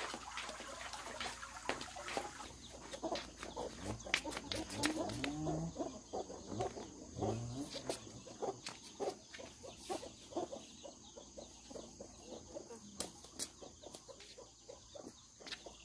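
Domestic chickens clucking in short calls, with many scattered sharp clicks and taps.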